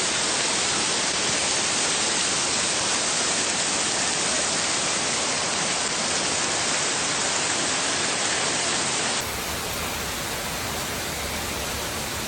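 Heavy rainstorm, a steady dense hiss of pouring water. About nine seconds in it cuts abruptly to another stretch of the same steady hiss, a little quieter.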